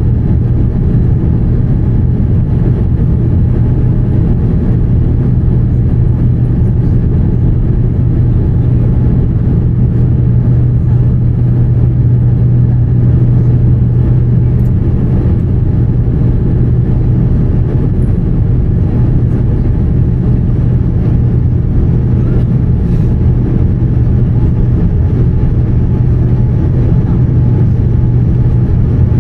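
Steady cabin noise inside a Boeing 787-10 climbing after takeoff: a low rumble of its Rolls-Royce Trent 1000 engines at climb thrust and the airflow over the fuselage, with a steady low hum underneath.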